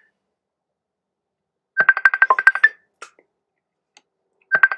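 Phone ringtone for an incoming call: a quick trill of high beeps under a second long, heard twice about three seconds apart. The call is left unanswered.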